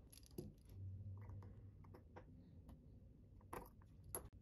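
Near silence with a few faint sharp clicks, one near the start and two close together near the end, from small watchmaking hand tools being picked up and handled on the bench.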